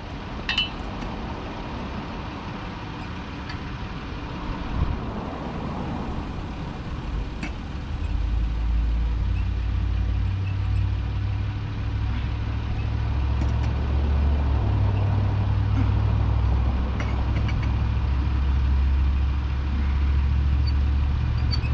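A van's engine idling as a low steady rumble that grows louder about eight seconds in, with a few faint clicks and knocks.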